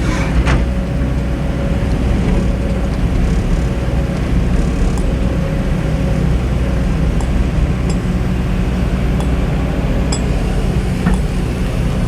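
Diesel engine of a hydraulic excavator working sand, running steadily under load, with a few short metallic clinks scattered through.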